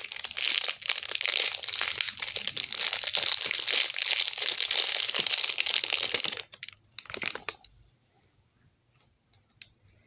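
Small clear plastic bag crinkling as it is handled and pulled open. It stops about six and a half seconds in, with a shorter rustle a second later.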